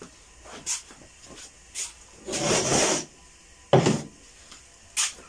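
Sliding head of a homemade rail-mounted panel saw being pushed along its steel rail by hand: a rub lasting most of a second about two seconds in, then a sharp knock, with a few lighter clicks around them.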